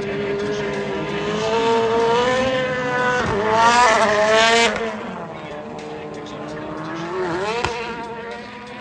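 Drift car's engine revving hard as the car slides with its tyres spinning and smoking: the engine note wavers, climbs to its loudest peak about four seconds in, drops away, and rises briefly again near the end.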